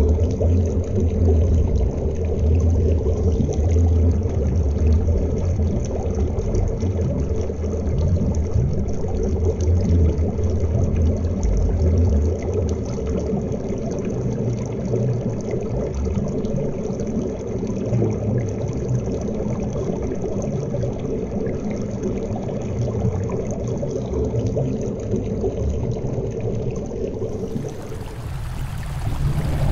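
River current recorded underwater by a waterproof action camera resting on a pebble bed: a dense, muffled rush and rumble of flowing water, heaviest in the deep range. Near the end the sound changes abruptly to a brighter hiss as churning bubbles sweep over the camera.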